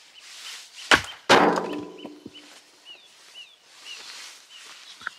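An axe splitting a log on a chopping block: a sharp strike about a second in, then a louder crack and a brief clatter of wood. A bird chirps over and over in the background.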